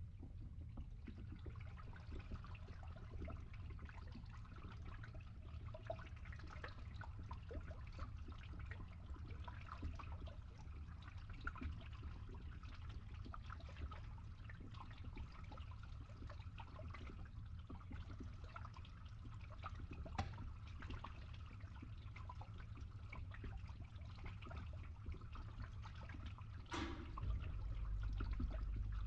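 Water trickling and gurgling as it drains through a pipe, over a steady low hum from the pump. A sharper splash comes near the end, and the pump hum then grows louder.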